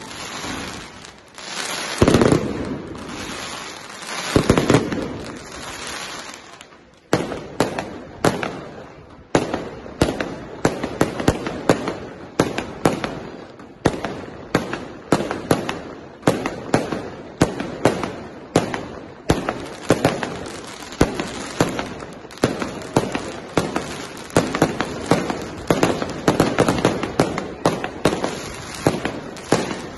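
Aerial fireworks display: a few large shell bursts with long rolling echoes in the first seconds, then from about seven seconds in a rapid, unbroken barrage of sharp bangs and cracks, several a second.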